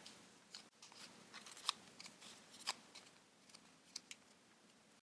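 Origami paper being handled and creased by hand, giving faint crinkling with a few sharper crackles.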